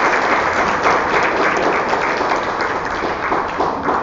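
Congregation applauding steadily in a large hall at the end of a talk.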